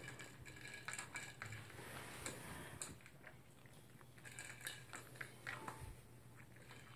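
Toy poodle eating dry kibble from a plastic bowl: faint, scattered crunching and small clicks of pellets against the bowl.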